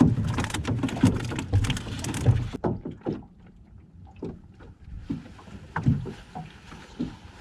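Water splashing and slapping around a small boat, with irregular knocks against the hull; loudest for the first three seconds, then quieter with scattered knocks.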